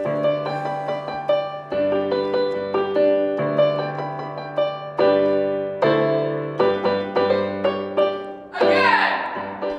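Piano music over the end credits, held chords changing every second or so, with a brief noisier swell near the end.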